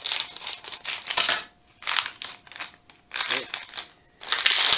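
Plastic Lego minifigure blind bag crinkling as it is handled and torn open, in several short bursts with brief pauses between them.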